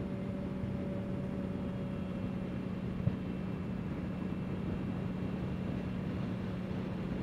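Honda CBR650R's inline-four engine running at a steady cruise, its hum holding one pitch over a rushing noise. A single short click about three seconds in.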